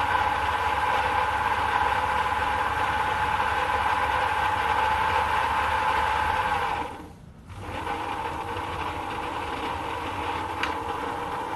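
Sherline metal lathe running under its motor and belt drive, a steady whine with the handles rattling. About seven seconds in the sound dips almost out for a moment, then carries on at a lower level.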